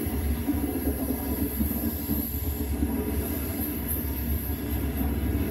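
High Speed Train (InterCity 125) passing at speed: a steady, loud rumble of coaches running on the rails, with a high hiss above it that grows toward the end.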